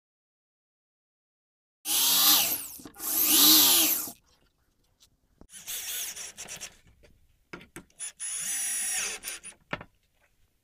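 Ryobi cordless drill/driver motor spinning in short trigger-controlled runs, driving screws into pine boards. Two loud runs about two seconds in swoop up and down in pitch as the motor speeds up and slows, followed by quieter, broken runs and a last steady run of about two seconds.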